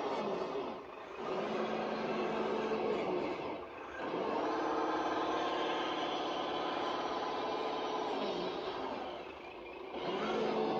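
Radio-controlled 6x6 dump truck's electric drive motor and gearbox whining as it drives through sand. The pitch falls and fades each time it slows to a stop, about a second in, near four seconds and again around nine seconds, and rises again each time it sets off.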